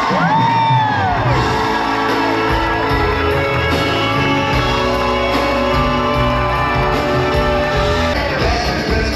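Music with a singing voice, loud and continuous, with long held notes and a sweeping vocal glide near the start.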